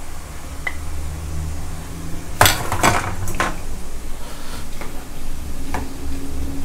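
A metal perforated skimmer clinking against a wok: a quick cluster of sharp clinks about two and a half seconds in, then a few lighter taps, over a steady low hum.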